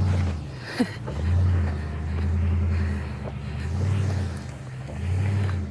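A vehicle's engine revving in repeated swells, rising and easing four or five times, as it climbs a steep, rocky dirt slope under load.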